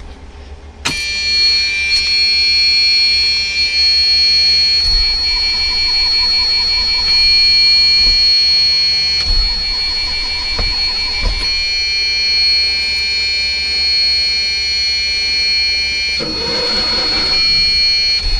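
Motorhome dashboard warning buzzer, a steady high-pitched electronic tone that starts about a second in and keeps sounding. It is the low air pressure warning, on because the air-brake tanks are not yet filled.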